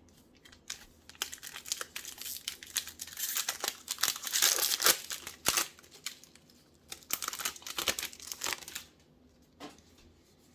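Foil wrapper of a Magic: The Gathering booster pack being torn open and crinkled by hand, the crackling loudest about halfway through and dying away near the end.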